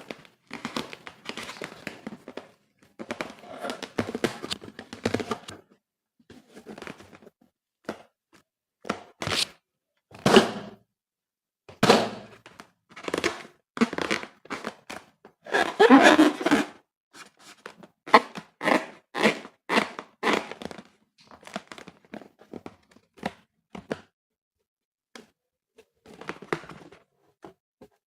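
Slime and balloons being handled by hand: irregular short squishing, crinkling and thunking sounds, separated by brief silences.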